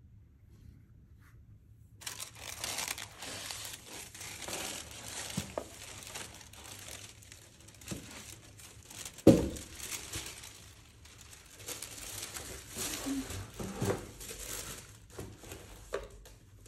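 Paper crinkling and rustling as it is handled, starting about two seconds in, with one sharp thump about nine seconds in.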